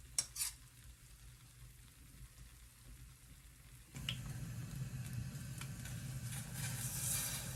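Food sizzling in a frying pan: a steady hiss that starts suddenly about four seconds in, after two light clicks.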